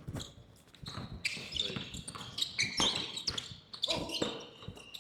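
Basketball bouncing on a gym floor during play. From about a second in come many sharp, high-pitched sneaker squeaks, with players' voices calling in the hall.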